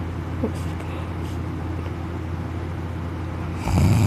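A steady low hum, then about three and a half seconds in a man's loud snore starts abruptly and runs on past the end.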